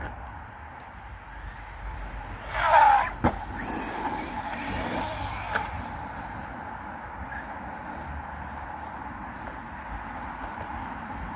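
Brushless motor of a small 1:10 RC truck whining as it drives, with a hard, loud rev about two and a half seconds in, then a sharp knock.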